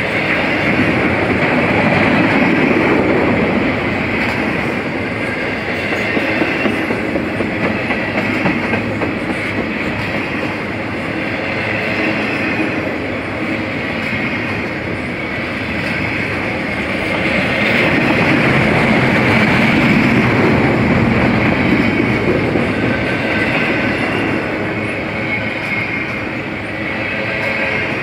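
Double-stack container train's well cars rolling past close by, a steady rumble of steel wheels on the rails with a rail clatter, swelling louder twice as cars go by.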